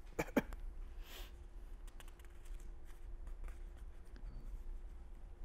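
Pen and paper handling at a desk: two sharp clicks near the start, a short rustle about a second in, then faint scratching and small ticks, over a steady low electrical hum.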